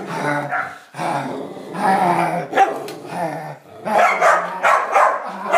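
Schnoodle barking and growling excitedly in a run of drawn-out bouts with short breaks between them, while chasing a remote-control helicopter.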